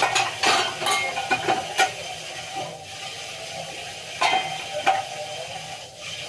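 Dishes and cutlery clinking and knocking as they are stacked into a dishwasher, several sharp clinks over a steady hiss.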